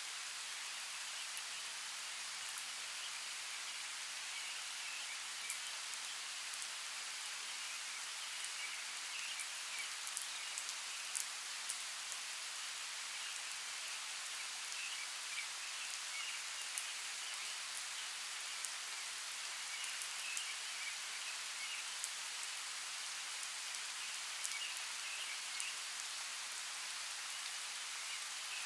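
Steady rain hissing, with scattered sharp ticks of individual drops striking close by.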